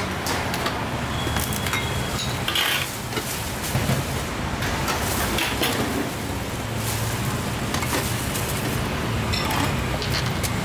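A steel ladle clinking against a large steel soup pot and ceramic bowls as broth is ladled out, with scattered short clinks and knocks over a steady low rush of background noise.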